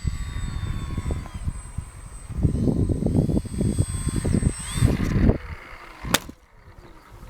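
Strong wind buffeting the microphone in gusts, over the thin high whine of a small RC model plane's motor, which fades out about five seconds in. A single sharp click near the end.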